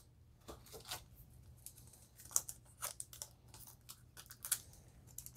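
Yu-Gi-Oh! Toon Chaos booster pack wrapper being torn open by hand: faint, irregular crinkling and tearing crackles, a little louder about halfway through and near the end.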